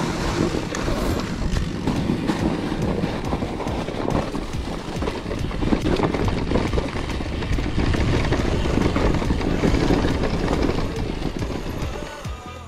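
Mountain bike riding over rough ground: a steady rumble with constant rattling and knocking from the tyres and bike, easing off a little near the end.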